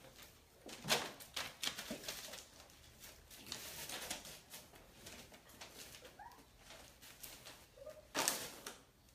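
Puppy giving a few short, high squeaks or whimpers amid clicks and scuffling of puppies moving about, with a louder thump near the end.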